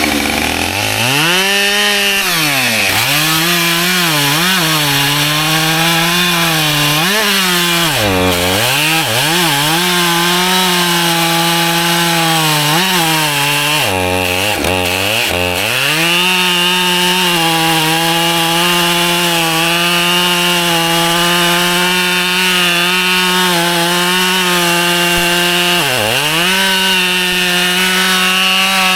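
Husqvarna two-stroke chainsaw cutting white oak logs, running at high speed with a steady engine note. Several times the pitch drops sharply and then climbs back to full speed, and the longest steady stretch at full speed falls in the middle.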